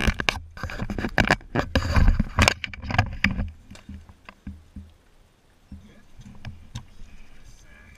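Rumbling and knocking of a hand-held action camera being moved about and rubbed, loud for the first few seconds, then fainter clicks and scrapes.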